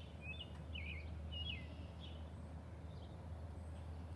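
Small birds chirping, a string of short falling chirps, over a steady low hum.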